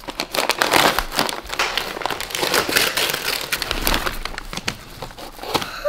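Shiny foil-finish Christmas wrapping paper crinkling and crackling as it is pulled and ripped off a present by hand.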